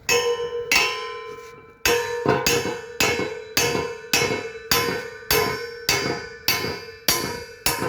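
Hammer striking a stud-welded 16 mm carbon steel round bar to bend it over in a bend test, about thirteen clanging blows a little under two a second, each leaving the steel ringing.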